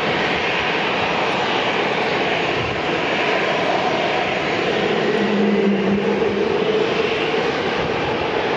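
Jet engines of an Asiana Airlines widebody twinjet running steadily as it rolls slowly along the runway. A short low hum joins in for about a second past the middle.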